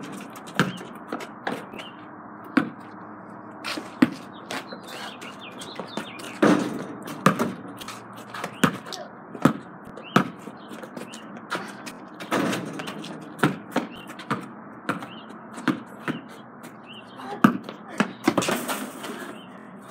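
A basketball being dribbled and played: sharp single thuds of the ball bouncing, irregular and roughly one a second.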